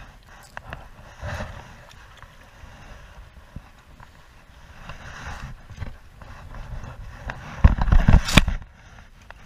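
Small waves lapping and knocking against a plastic kayak's hull, with wind rumbling on the microphone. About eight seconds in, a louder second of low rumbling and sharp knocks as gear is handled in the kayak.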